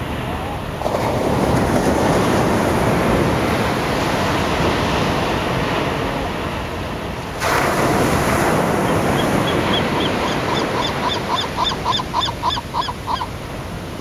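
Ocean surf washing onto a sandy beach, with two waves breaking about a second in and about halfway through. Near the end a gull calls in a quick series of about twenty short, repeated notes.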